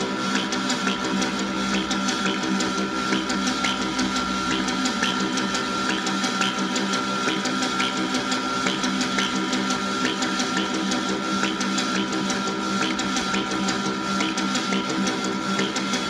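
5U modular synthesizer patch playing a steady drone of several held tones, overlaid with a busy, uneven stream of short clicks and blips.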